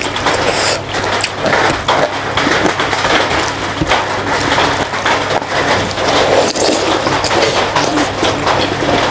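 Close-miked eating: wet chewing and smacking mouth sounds, with fingers squishing and mixing rice on a steel plate, many small clicks and squelches. Steady heavy rain hisses behind it.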